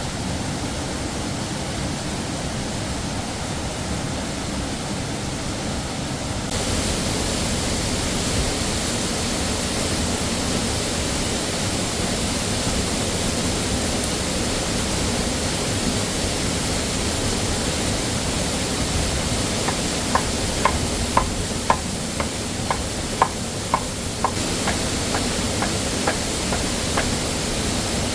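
Steady rushing of a waterfall, its hiss growing brighter and a little louder about six seconds in. Near the end comes a run of light, sharp taps, about two a second.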